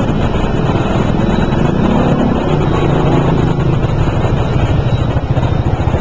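Steady low rumble and flutter of wind and motion on a microphone carried along among a crowd of cyclists.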